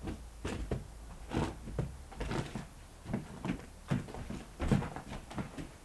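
Footsteps on wooden porch boards: a run of dull, uneven thuds, about two or three a second.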